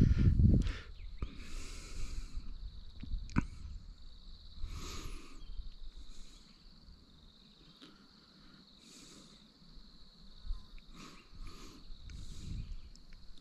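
A steady high-pitched insect drone, with short scratchy rustles at intervals and a low knock at the very start.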